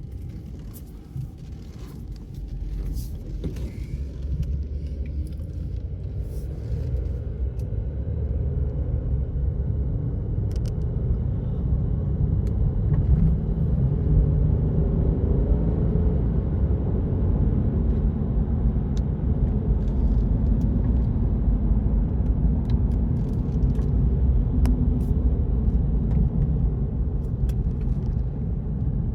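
Car road noise from a moving car: a steady low rumble of tyres and engine that grows louder over the first dozen seconds, then holds.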